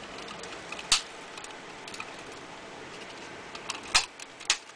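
Sharp clicks and small taps of hands working in an open laptop keyboard bay while laying down double-sided tape: one loud click about a second in and two more near the end, with fainter ticks between.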